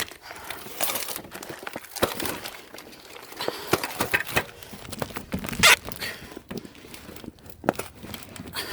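Irregular rustling, scraping and knocks of things being handled and packed away, a tote and tools among them.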